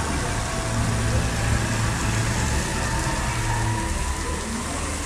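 AJM30 water booster pump running under test, a low motor hum beneath a steady rush of water.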